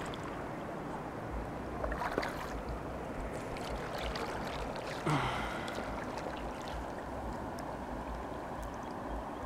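Steady rush of flowing river water, with a brief vocal sound about five seconds in.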